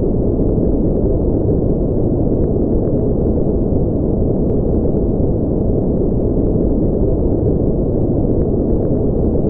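Steady, unbroken synthetic noise of the kind sold as white noise for sleep, but deep and dull: a low rush with no high hiss.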